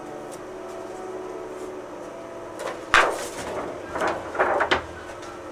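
Handling noises at a large flatbed scanner: a sharp knock about three seconds in, then two short spells of scraping and clattering.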